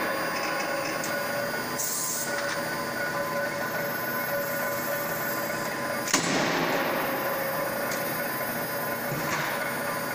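Forge shop machinery humming steadily, with a short high hiss about two seconds in and one sharp, heavy strike about six seconds in.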